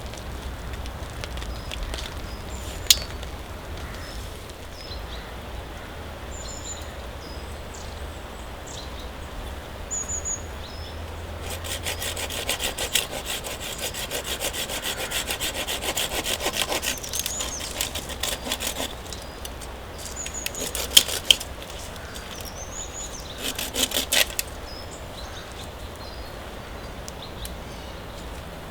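Hand saw cutting through wood in quick rasping strokes, a steady run of about five seconds near the middle, then two short spells a few seconds later. Brief high bird chirps come before it.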